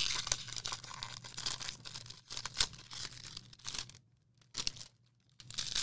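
Baseball card pack wrappers being torn open and crinkled by hand, in irregular crackling spurts. There is a pause of a second or so about four seconds in.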